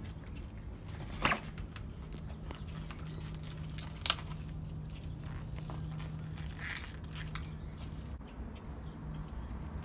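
Quiet handling of plastic toys and packaging, with two sharp clicks about a second and four seconds in, over a faint steady hum.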